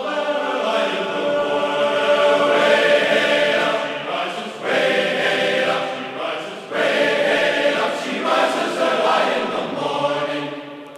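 Sung outro song with voices chanting in phrases a few seconds long, dying away near the end.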